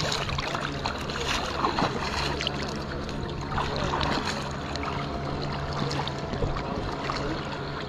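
Water lapping and splashing right against a camera held at the surface, with swimmers paddling close by, over a steady low hum.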